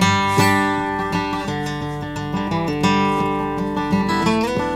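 Background music: an acoustic guitar strumming chords, with a fresh strum and chord change every second or so.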